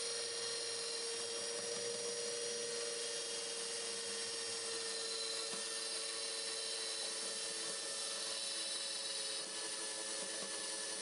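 Electric stand mixer running steadily, a constant motor whine as its twin beaters whip egg whites and sugar into a stiff meringue.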